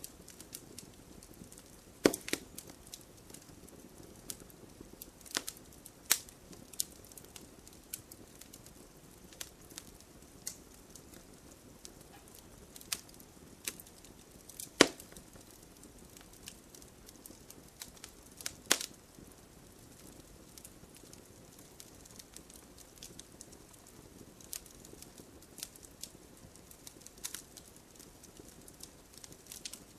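Campfire burning with a soft steady hiss and irregular crackles and sharp pops of the wood, a few louder snaps standing out.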